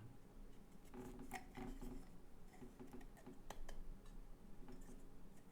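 Scattered light clicks and small knocks of camera mounting parts being handled and fitted together.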